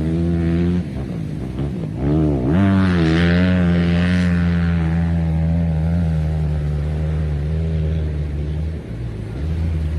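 Dirt bike engines revving. The pitch dips and climbs about two seconds in, then holds as a steady high drone, with a brief drop near the end.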